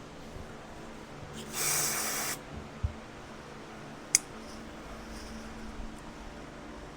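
A short hiss of aerosol brake cleaner sprayed into a carburetor, lasting just under a second, then a sharp click a couple of seconds later.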